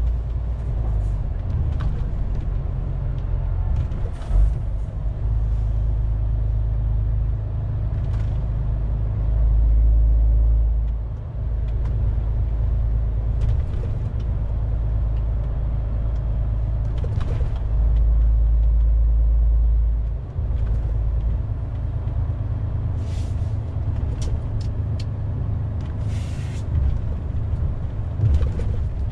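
Inside the cab of a moving MAN TGX 470 truck: its straight-six diesel and the tyres make a steady low drone, swelling louder twice, with short clicks and brief hisses here and there.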